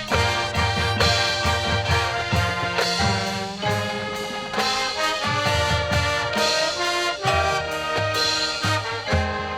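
Marching band playing a brass-led passage, trumpets and trombones over drums, with punchy accented chords. Near the end the playing eases to softer held notes.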